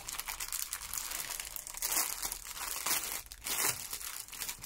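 Clear plastic bag crinkling and crackling irregularly as it is handled, with a few louder crackles.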